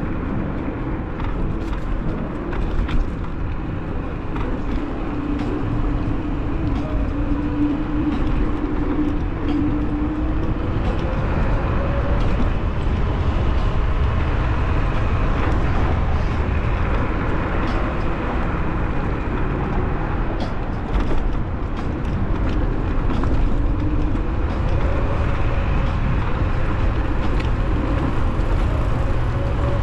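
Wind buffeting the microphone over the rolling noise of a bicycle on a paved bike path, with a faint hum that slowly rises and falls in pitch.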